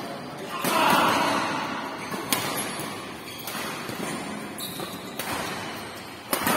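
Badminton rackets striking a shuttlecock in a rally: sharp cracks a second or two apart, the last and loudest a hard overhead smash near the end. The cracks ring out in a large sports hall over a low hum of background voices.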